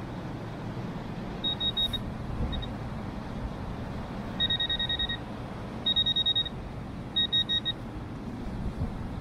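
Handheld metal detector beeping in several runs of rapid high-pitched pips, the longer runs in the second half, as it picks up metal inside a concrete block.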